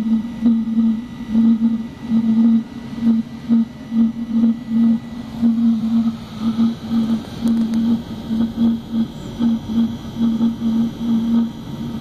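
Webasto diesel heater running in its startup stage, before full load: a low burner-and-blower hum that swells and fades unevenly about twice a second.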